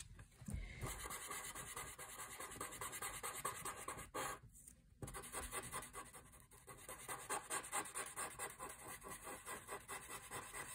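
Felt-tip marker scratching over paper in quick back-and-forth strokes as an area is coloured in, with a short pause a little before halfway.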